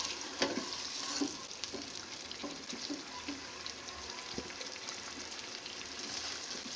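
Chicken pieces sizzling in hot oil in a frying pan, a steady frying hiss. A few sharp clicks of the turner against the pan as the pieces are lifted out.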